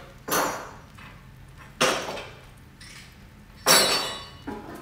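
Three sharp metallic clanks, each ringing briefly, as the metal parts at the table of a Craftsman 12-inch bandsaw are handled, with a softer knock near the end; the last clank is the loudest.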